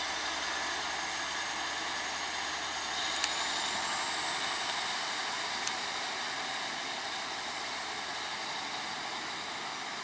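Class 150 Sprinter diesel multiple unit pulling away, its running noise steady and slowly fading, with a high whine that rises slowly in pitch. Two sharp clicks come a few seconds in.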